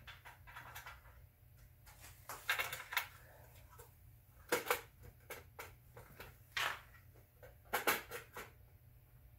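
Screwdriver and hands working the hold-down screws of a clear plastic distributor cap on an AMC 4.2L engine: a scatter of small clicks, scrapes and knocks. The loudest come about two and a half, four and a half and eight seconds in.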